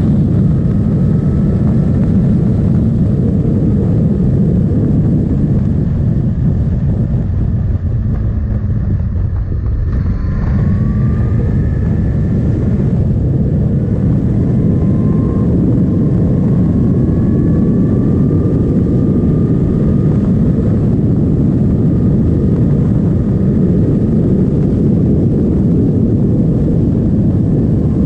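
Suzuki GSX-S 1000's inline-four engine running at road speed under heavy wind rush on the camera microphone. The engine note rises and falls with the throttle, dipping briefly about eight seconds in and climbing again about ten seconds in.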